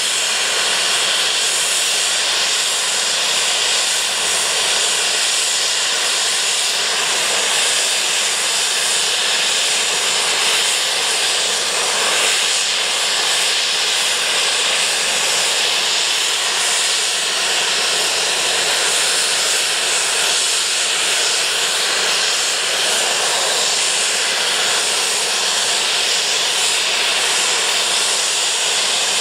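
Steam locomotive blowing off steam, a loud, steady hiss that holds unbroken.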